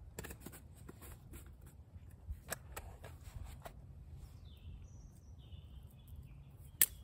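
Scattered clicks and small snaps from twigs and kit being handled by a small twig fire, over a low outdoor rumble. A few short bird calls come a little past the middle, and one sharp snap, the loudest sound, comes just before the end.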